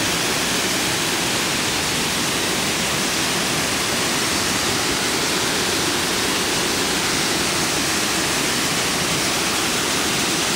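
Waterfall pouring into a pool: a loud, steady rush of falling water that does not change.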